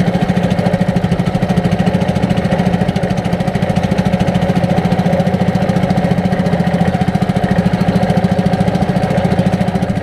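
Small wooden fishing boat's engine running steadily under way, with a fast, even chugging beat.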